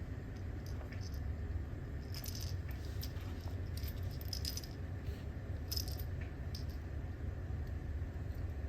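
Light metallic jingling and rattling in a few short bursts over a steady low hum.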